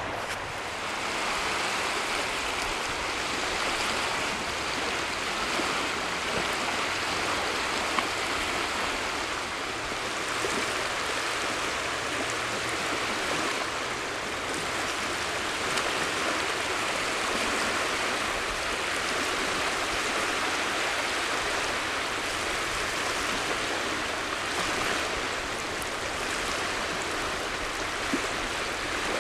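Steady rushing wash of small lake waves along a sandy shore, swelling and easing slowly.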